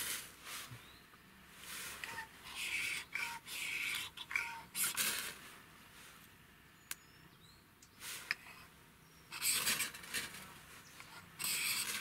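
Ferro rod struck with the sharp back of the saw blade on a Victorinox Hercules Swiss Army knife: a series of short rasping scrapes, unevenly spaced, each throwing sparks onto tinder.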